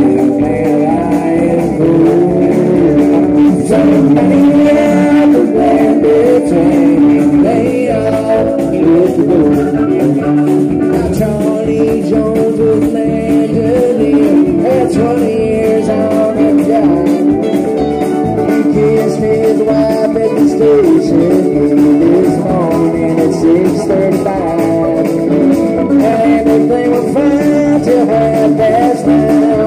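Live country-rock band playing, with electric and acoustic guitars, drums and electric keyboard.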